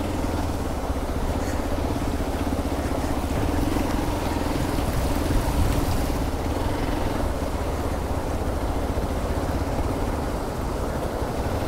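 Hero Xpulse 200 4V's single-cylinder engine running steadily at low speed as the motorcycle eases into a shallow river crossing, over the steady rush of the river water.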